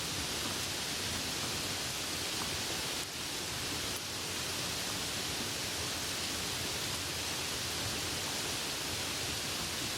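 Steady rain falling, an even hiss with no separate drops or other sounds standing out.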